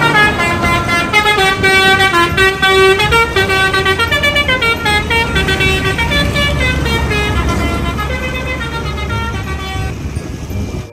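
Basuri telolet bus horn, a multi-tone musical air horn, playing a stepping melody of several notes at once over a low engine rumble, slowly fading over the last few seconds.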